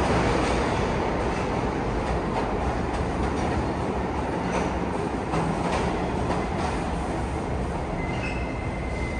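New York City subway train rolling along the platform: a steady rumble and clatter of steel wheels on the rails, easing off slightly, with a faint high whine near the end.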